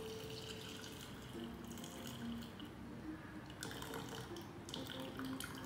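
Brewed oolong tea poured from a stainless steel pot through a cloth filter bag into a glass carafe: liquid trickling and dripping through the cloth, with a few small clicks in the second half.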